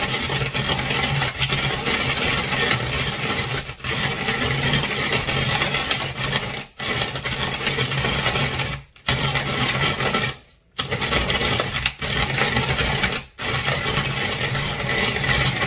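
Coffee beans crunching and scraping as they are ground in a hand-cranked Tupperware Master System grater with a coarse-cut cone. It is a steady gritty grinding, broken by about six short pauses as the handle is turned in spurts.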